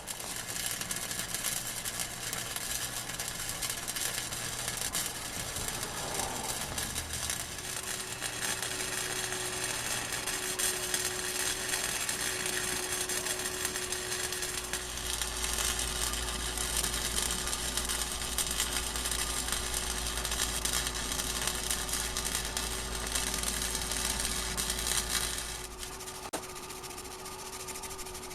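MIG welder arc crackling and buzzing in a long, steady run, stopping near the end. The owner says the welder has trouble feeding its wire.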